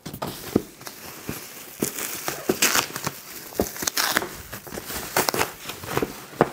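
Silver insulated foil wrap crinkling and tearing as it is ripped off a pizza box, with irregular sharp crackles and snaps.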